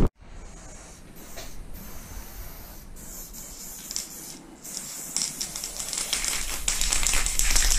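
Aerosol spray paint can hissing as paint is sprayed onto a wall, in spurts broken by short pauses, growing louder over the last couple of seconds.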